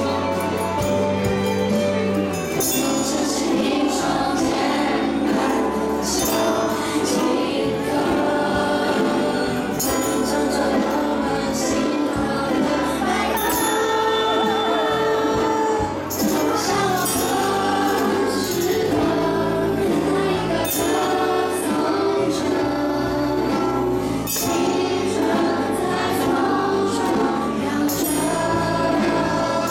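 A children's ukulele ensemble strumming a song together, with young voices singing along as a group.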